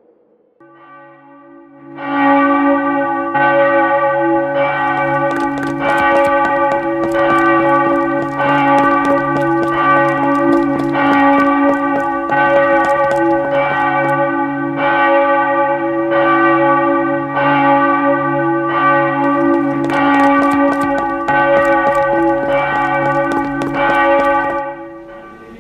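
Church bell ringing, struck over and over with a steady ringing tone between strikes. It comes in faintly just under a second in, turns loud about two seconds in, and stops shortly before the end.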